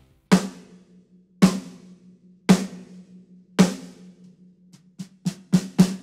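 Snare drum, muffled with a single tissue taped to its batter head, struck four times about a second apart, then in a quicker run of strokes near the end. Each hit rings briefly at a steady pitch.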